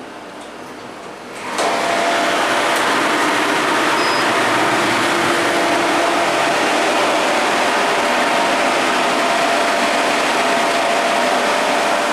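Schindler hydraulic lift running through a one-floor ride: a loud, steady hiss with a faint hum that starts suddenly about a second and a half in and keeps an even level until the doors open near the end.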